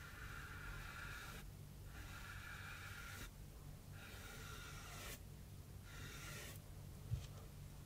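Paintbrush dragged through wet gouache on cardboard: a soft scratchy swish in four long strokes, each a second or more, with short pauses between them. A small tap near the end.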